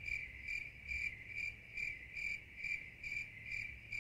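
Cricket chirping sound effect: a thin, high chirp repeated evenly about twice a second over an otherwise empty background, edited in so that it starts and stops abruptly.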